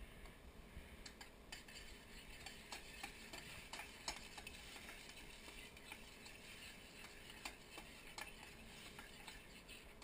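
Onions and garlic sizzling faintly in a hot pot as they are stirred, with a utensil clicking against the pot now and then.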